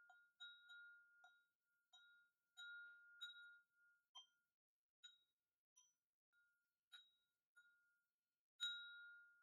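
Stemmed wine glass tapped lightly with a stick, ringing at one clear high pitch after each strike. About a dozen soft, unevenly spaced taps, the loudest near the end.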